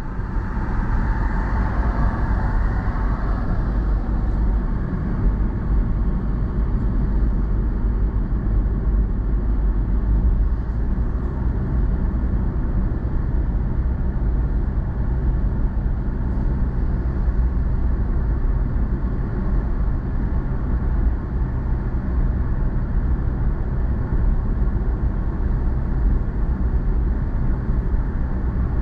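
Car on the move: steady engine and tyre road noise, deep and even, with a brief swell of higher noise in the first few seconds.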